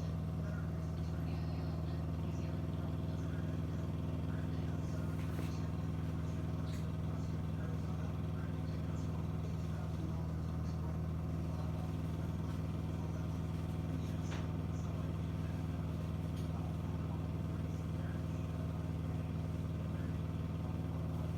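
Dishwasher running with a steady low hum that does not change: the strange noise the machine is making. A few faint clicks sound over it.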